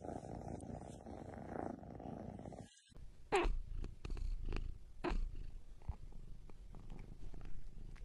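A cat purring steadily and close up, cut off about two and a half seconds in. After a short gap come a few short sharp sounds, the loudest about three and a half seconds in and another about a second and a half later.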